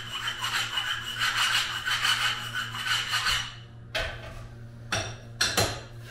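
Manual rail tile cutter's scoring wheel drawn across a ceramic subway tile: a long scratchy scrape with a steady high whine through it. It stops about three and a half seconds in and is followed by a few sharp clicks.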